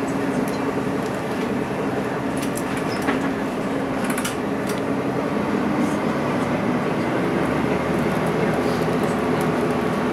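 Cabin noise of a moving electric tram: a steady running hum with a few short rattles and clicks from the car body and fittings.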